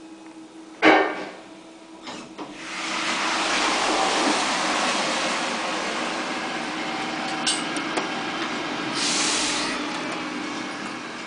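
KONE Monospace glass elevator car stopping at the floor with a sharp thud, then its doors sliding open. A loud rush of outside noise swells in through the open doors and slowly fades, with a few light clicks and a brief hiss about nine seconds in.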